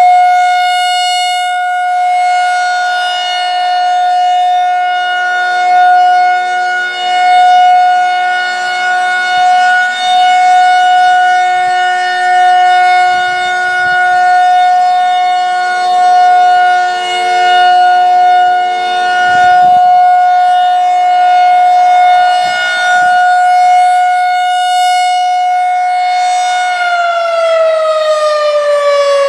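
Federal Signal 2001-130 electromechanical outdoor warning siren sounding its steady alert tone, the loudness swelling and fading every few seconds as the rotating horn sweeps past. About 27 seconds in, the pitch starts falling as the siren winds down at the end of its three-minute test.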